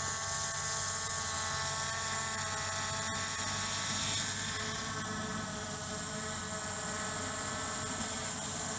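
Skydio 2 quadcopter hovering, its motors and propellers giving a steady multi-tone whine that eases slightly in level. A single faint click comes about three seconds in.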